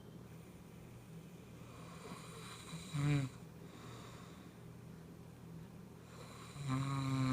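Snoring with a pitched tone: a short snore about three seconds in, then a longer, louder one near the end.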